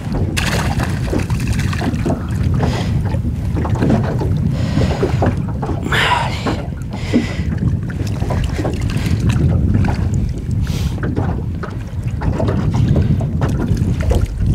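Wind rumbling on the microphone over water slapping against a small aluminium boat, with scattered small knocks and brief rustles from handling a fish and tackle.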